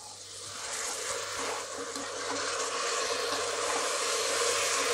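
Hot oil and masala sizzling in a pressure cooker pot as freshly washed, wet rice is tipped in; the sizzle swells over the first couple of seconds and then holds steady.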